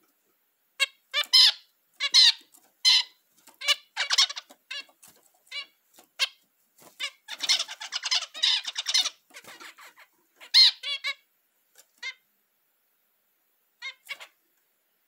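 Male zebra finch singing its courtship song: a run of short, quick notes, densest about eight seconds in, then two last notes near the end.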